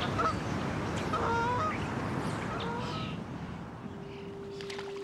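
Geese honking, a few short calls in the first three seconds, over a steady wash of background noise. Near the end a single steady low tone starts and holds.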